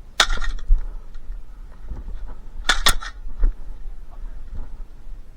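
Airsoft gunfire: two short bursts of sharp cracks, the first just after the start and the second, two quick shots, about two and a half seconds later, with lighter knocks and handling noise between.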